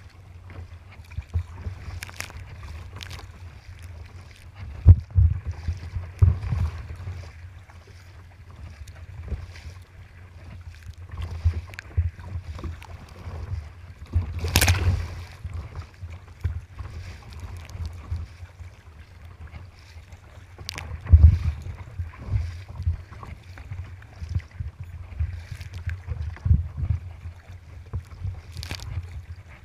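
Choppy water slapping and splashing against a sea kayak's hull and deck, with wind buffeting the microphone in irregular gusts. One big splash about halfway through, as a wave throws spray over the bow.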